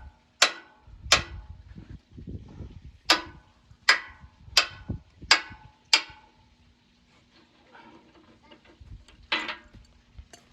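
Hammer blows on steel around a welded pipe fitting: a steady series of sharp, ringing strikes a little under a second apart for about six seconds, then a pause and one more strike near the end.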